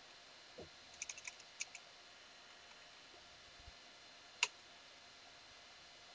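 Faint computer keyboard keystrokes: a quick run of about six clicks around a second in, then a single louder key press, the Enter key, about four and a half seconds in.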